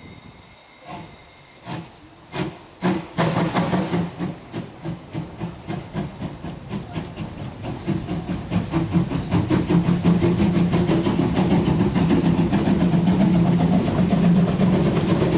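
Narrow-gauge 2-10-2 tank steam locomotive pulling away from a stand with a train. The exhaust beats start slow and widely spaced about a second in, then quicken steadily into fast, even chuffing over a steady hiss of escaping steam.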